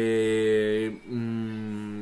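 A man's voice holding two long, drawn-out filler sounds at a steady low pitch, with a short break about a second in; the second is a little quieter.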